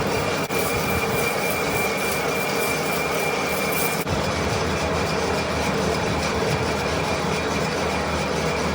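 Manual metal lathe running steadily, a constant machine noise with a steady high-pitched whine over it.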